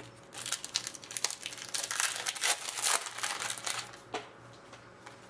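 Foil wrapper of a Panini hockey card pack being torn open and crinkled by hand, a dense crackling that lasts about three seconds and then dies down to a few faint rustles.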